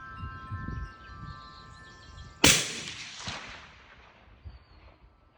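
A single suppressed rifle shot about two and a half seconds in: a .375 Raptor firing a supersonic 270-grain Hornady load through an AB suppressor. It is a sharp crack, pretty quiet for the calibre, and its echo dies away over about two seconds.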